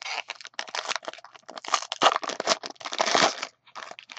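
Foil wrapper of a trading-card pack being torn open and crumpled by hand. A dense run of crackling crinkles thins to scattered crinkles near the end.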